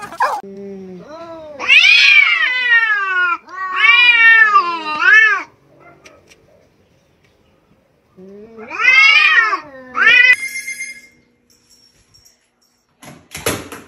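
Two domestic cats yowling at each other in a standoff: long wails that rise and fall in pitch, one series through the first five seconds and another starting about eight seconds in. A brief metallic ring follows the second series, and a short burst of noise comes near the end.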